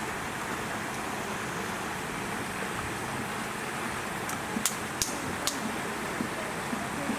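Steady outdoor background hiss with faint distant human voices, broken by three or four sharp clicks a little past halfway.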